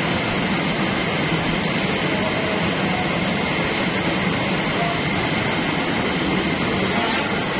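Dough-sheeting roller machine and conveyor belt running, a steady mechanical noise with a thin high whine held throughout.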